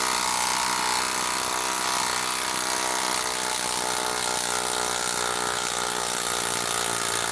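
DeWalt 12-volt Xtreme brushless impact driver hammering steadily under load as it backs a 4-inch lag screw out of a wood round.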